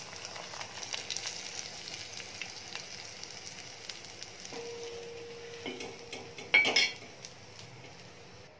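Semolina-coated prawns deep-frying in hot oil in a wok: a steady sizzle with small crackles as a spoon stirs and lifts them out. A short, loud clatter comes about six and a half seconds in, and the sizzle fades near the end.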